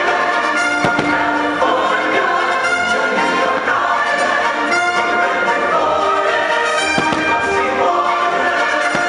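Fireworks show soundtrack of orchestra, brass and choir playing loud and steady, with sharp firework bangs about a second in and about seven seconds in.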